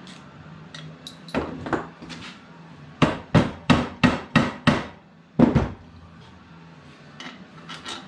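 Hammer blows tapping the ATV engine's aluminium crankcase halves together to seat them past the main bearing: two taps, then a run of six quick strikes at about three a second, and one more.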